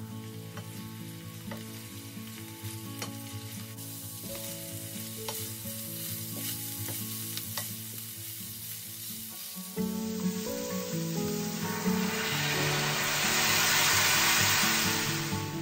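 Shredded chicken frying and sizzling in a stainless steel pan, stirred with a wooden spoon that taps and scrapes against the pan. About twelve seconds in, the sizzle swells loudly for a few seconds and then dies back.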